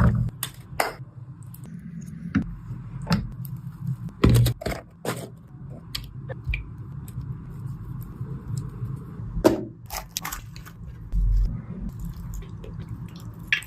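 A metal utensil knocking and scraping against a pan or dish in irregular clicks, over a steady low hum.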